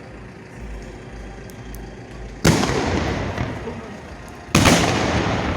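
Two loud fireworks shots about two seconds apart, each a sharp bang followed by a long echoing rumble that slowly fades.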